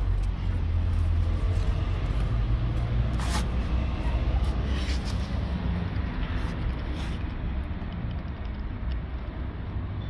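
Low, steady rumble of a motor vehicle's engine running, swelling a little in the first few seconds and easing off later, with two or three brief sharp noises over it.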